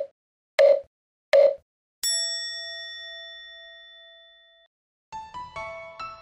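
Electronic countdown beeps: three short beeps about 0.7 s apart, then a longer, slightly higher tone that rings and fades away. Light keyboard-like music begins near the end.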